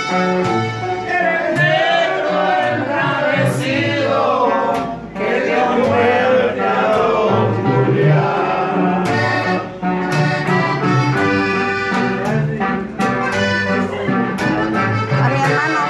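Live Mexican string band, an upright bass and an acoustic guitar, playing a song with a man singing. The bass plucks an alternating line of low notes under the strummed guitar.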